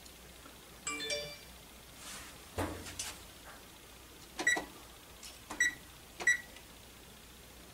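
Three short high beeps from an electric range's touch control panel as its settings are pressed, each a second or less apart. Earlier, a short chime of several notes that sounds like a phone alert, and a couple of light knocks.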